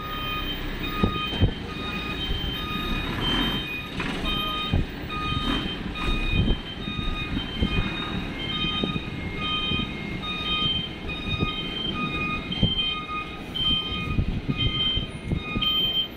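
Cargo truck's reverse-warning alarm beeping steadily, about two short beeps a second, over its diesel engine running as it backs slowly up the steel ferry ramp.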